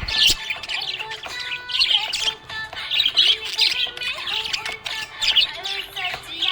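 Pet budgerigars chirping and chattering in repeated bursts, over background music.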